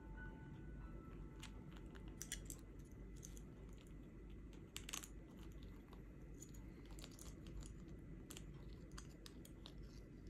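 African grey parrot gnawing a small toy with its beak: faint, irregular crunches and clicks.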